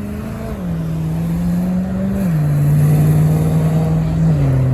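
A car accelerating hard through the gears: the engine note climbs, then drops sharply at each of three upshifts.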